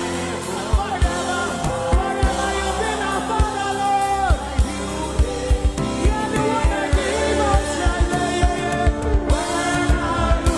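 Gospel worship song: singing over held chords, with low drum beats throughout.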